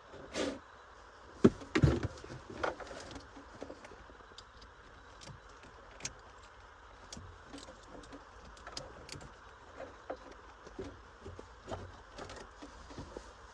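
Light metallic clinks and taps of tools and parts being handled, with one sharp click about a second and a half in, then scattered faint ticks.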